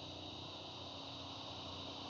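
Steady outdoor ambience: a continuous high-pitched insect drone with a faint low hum beneath it.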